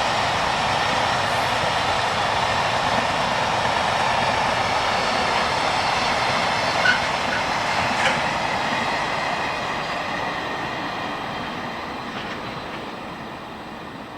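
Freight train hauled by an EF81 electric locomotive passing, its wagons rolling steadily over the rails with a clickety-clack. Two short sharp clicks come about seven and eight seconds in, and the sound fades away over the last few seconds as the train recedes.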